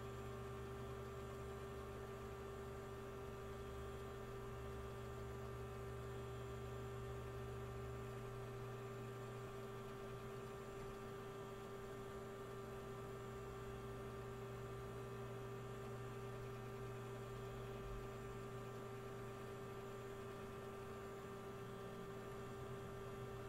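A faint, steady electrical hum made of several fixed tones, its deepest low rumble dropping away about eight seconds in.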